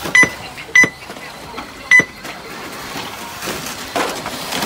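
Three short, high electronic beeps in the first two seconds, typical of an RC race's lap-timing system registering cars crossing the line, over the steady background noise of the track.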